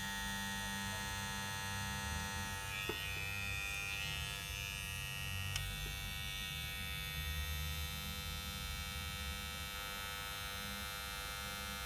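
Corded Wahl Detailer hair trimmer running with a steady electric buzz after its broken spring holder was repaired and its blades oiled. The noise is normal for the trimmer, about 60 dB on a sound meter. Two faint clicks come early on.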